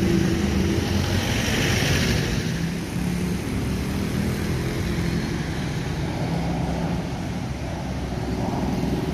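City road traffic: engines of passing cars and motorbikes running steadily, with one vehicle going by close about two seconds in.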